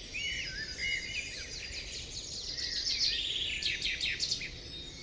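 Birds chirping and calling together: a few slurred whistled notes in the first second, then a busier run of quick high chirps through the middle, over a faint hiss.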